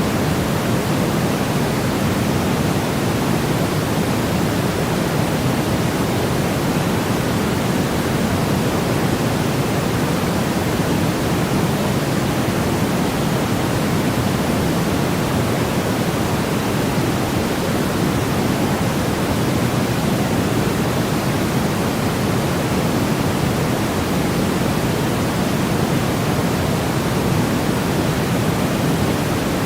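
Steady, unchanging white-noise-style hiss, even across the whole range and heavier in the low-mid range, like a pink-noise sleep track.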